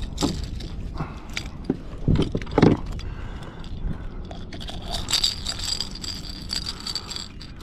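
Clicks, scrapes and rattles of fish-handling gear: a plastic lip-grip clamp and metal pliers clattering against a hooked plug lure as a striped bass is lifted and unhooked. Two louder knocks come a little after two seconds in, about half a second apart.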